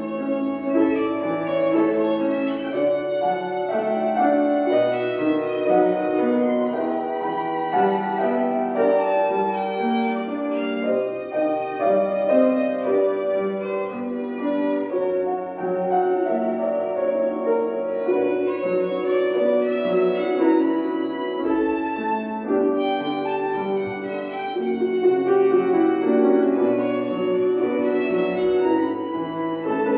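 Violin playing a slow, lyrical melody with sustained, singing notes over piano accompaniment.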